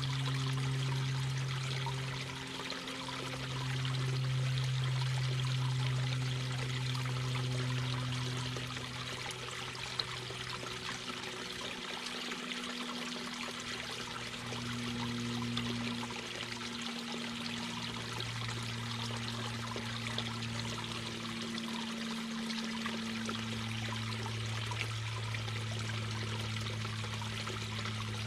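Mountain brook babbling and rushing steadily over rocks, with a low hum underneath that shifts in pitch and briefly drops out a few times.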